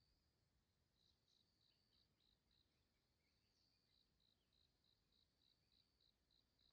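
Near silence with faint insect chirping: a steady high trill, and over it short high chirps repeated evenly about three times a second, in two runs.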